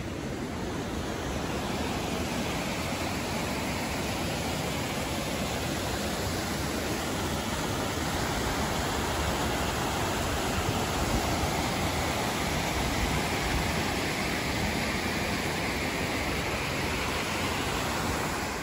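Steady rush of a mountain creek pouring over a small rocky cascade.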